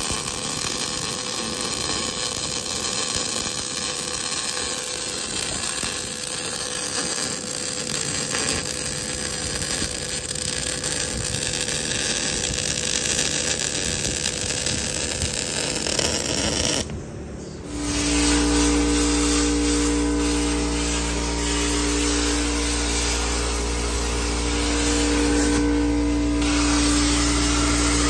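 Power tools running during metal fabrication work: a steady motor noise, then, after a brief break about two-thirds through, a different steady machine sound with a low drone and a few held tones.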